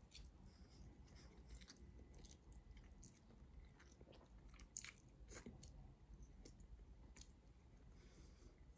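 Faint close-up mouth sounds of a person eating spaghetti: soft chewing with scattered small wet clicks, a couple a little louder about halfway through.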